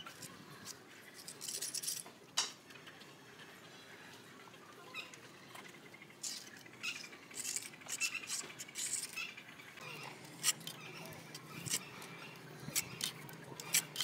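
Steel hand trowel scraping and smoothing wet cement render along a moulding on a concrete wall, in short scraping strokes, with a run of light ticks and taps near the end.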